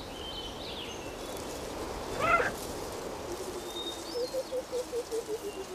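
A cheetah gives one short, high chirping call about two seconds in. Behind it is a quiet outdoor background with faint high bird whistles, and from about three seconds on a low call pulses about five times a second.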